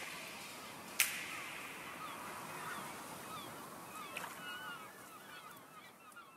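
The tail of a background music track: a sharp hit that rings out about a second in and a smaller one near four seconds, with many short high chirps, all fading away toward the end.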